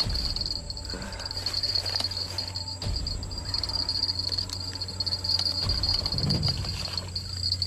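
Insects droning steadily at a high pitch, with a slight pulsing, over a faint low rumble.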